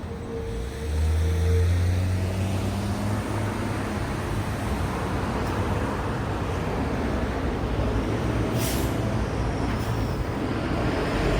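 Road traffic at an intersection. A large vehicle's engine grows loud about a second in and keeps running as it passes, after a brief squeal at the start, and there is a short air-brake hiss near the end.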